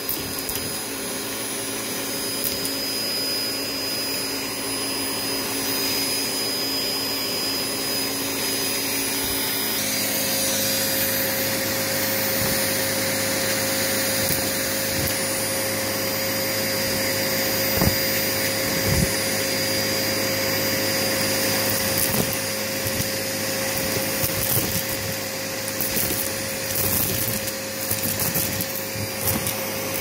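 Vacuum cleaner running steadily as its hose sucks bingo chips and fluff off a carpet. Its tone shifts about a third of the way in. Sharp clicks of chips knocking into the nozzle come now and then, and bunch up near the end.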